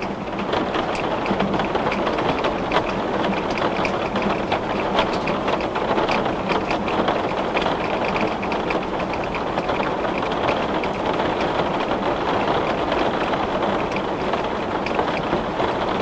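Heavy rain beating on window glass: a steady hiss thick with the small ticks of individual drops striking the pane.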